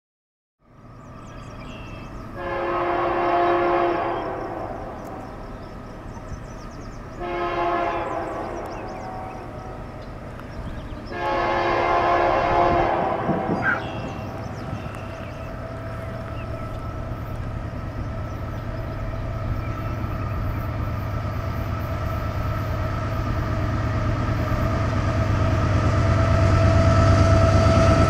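BNSF freight train's diesel locomotive air horn sounding three long blasts a few seconds apart, then the locomotives' engines rumbling louder and louder as the fast train approaches.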